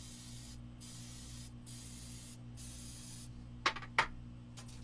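Aerosol can of cooking spray hissing in about four short bursts, coating a baking pan. Near the end come two sharp knocks, the loudest sounds here.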